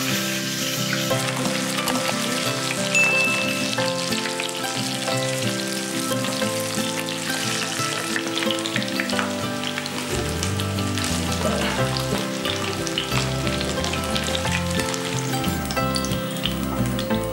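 Catla fish pieces shallow-frying in hot oil in a wok, a steady sizzle with fine crackling throughout.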